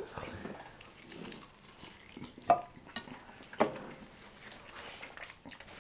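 Quiet handling noises while eating: faint rustling with a few light clicks and knocks, the clearest about two and a half and three and a half seconds in.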